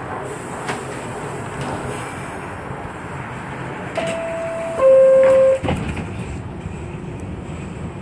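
New York City subway train running slowly on elevated track, heard from inside the car. About four seconds in, a two-note falling signal sounds, each note just under a second long, the second louder and cut off sharply.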